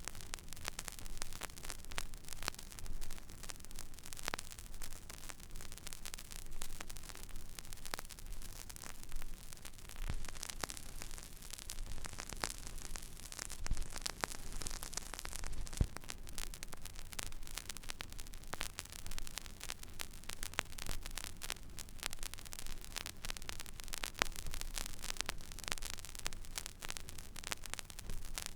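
Stylus tracking an empty vinyl record groove: steady surface hiss dotted with many irregular crackles and pops, over a low hum.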